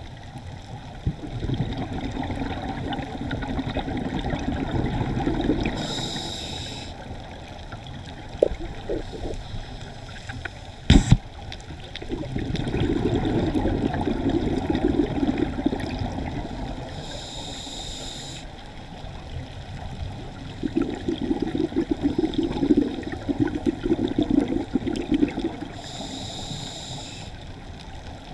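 Scuba diver breathing through a regulator underwater: three long bubbling exhalations alternate with three short hissing inhalations, about one breath every ten seconds. One sharp knock comes about eleven seconds in.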